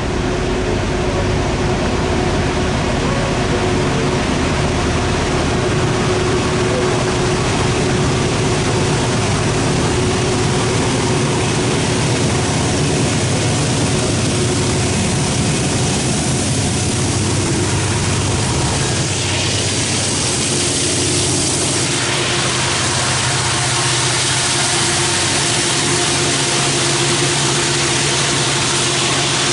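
Diesel locomotives at the head of a loaded Norfolk Southern coal train, running loud and steady as they haul upgrade and approach. A hiss grows brighter about two thirds of the way through as they near.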